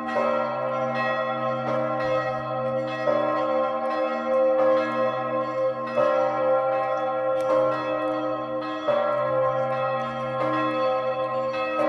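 The Augustin bell, the third-largest bell in the Czech Republic, swinging and ringing in its tower. Its clapper strikes about every second and a half, and each stroke rings on into the next over a deep, steady hum.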